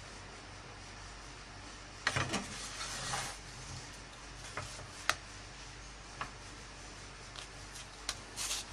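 Scattered light clicks and short scrapes of a utensil and the flatbread against a non-stick pan as pita bread is turned and checked while it cooks, with one sharper click about five seconds in.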